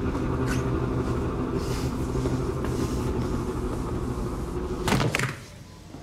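Film soundtrack: a dense, steady low rumbling drone with several held tones, broken about five seconds in by one loud, sudden crash-like noise, after which it falls much quieter.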